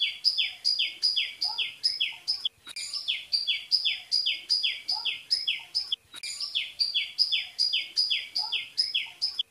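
Bird chirping in a fast, even series, about three short falling chirps a second. The series breaks off briefly twice and resumes in the same pattern.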